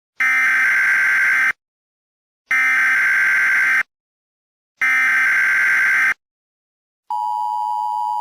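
Emergency Alert System SAME header: three harsh, buzzy bursts of digital data tones, each about a second and a half long with a one-second gap between them. The steady two-tone EAS attention signal starts about seven seconds in.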